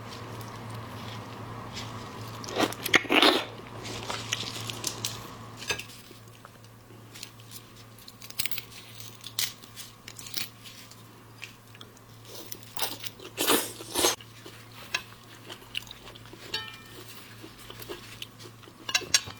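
Close-miked eating of seafood: irregular bites and chewing with crunchy, crackly clicks, the loudest crunches coming about three seconds in and again twice around thirteen to fourteen seconds.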